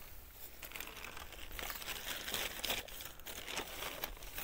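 Plastic carrier bags rustling and crinkling as they are handled, a rapid run of small crackles that builds up about a second in.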